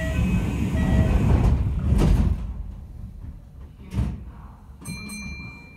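The doors of a Kintetsu 5800-series commuter train sliding shut. Two short beeps sound, then a rush of noise, with thuds about two seconds and four seconds in. A brief high tone sounds near the end.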